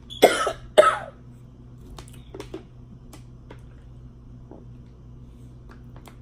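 A woman coughing twice in quick succession, sharp and loud, as food goes down the wrong way; a few faint clicks follow.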